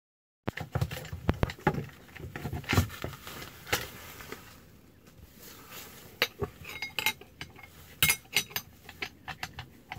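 Irregular metal clicks and clinks as an angle grinder's disc is changed by hand: an abrasive disc and its flange nut are taken off and a thin cut-off wheel is fitted to the spindle. The grinder is not running.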